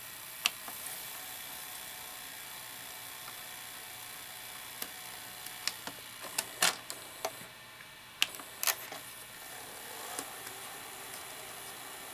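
Tape transport of an open 1990 GE VHS VCR running jet rewind: a steady whir from the reels spinning the tape at high speed. A handful of sharp mechanical clicks come between about five and nine seconds in.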